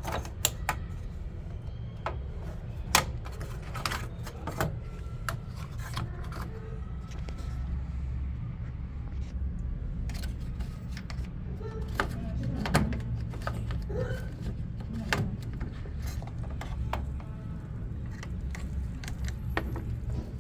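Washing-machine parts being handled during cleaning: scattered plastic clicks and knocks, louder about three seconds in and again near the middle, over a steady low hum.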